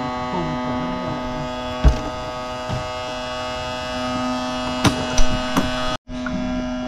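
Small fishing boat's outboard motor running steadily at idle, a constant even hum, with a few sharp knocks about two and five seconds in.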